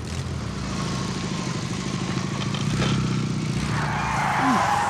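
Small FPV quadcopter's motors and propellers whirring steadily in flight, swelling louder near the end.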